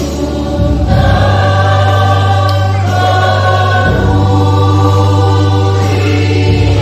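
Church choir singing a hymn in parts over sustained low accompaniment notes. The voices swell in about a second in.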